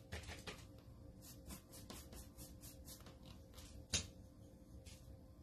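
Faint scratchy strokes of a paintbrush being worked in chalk-style paint, about three a second, with one sharp tap about four seconds in.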